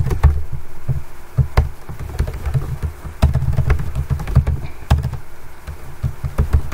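Typing on a computer keyboard: irregular keystrokes in short runs, each click with a dull thud.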